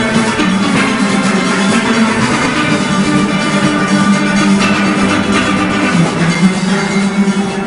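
Full steelband playing fast, with many steel pans ringing in rapid strokes over a driving percussion rhythm section.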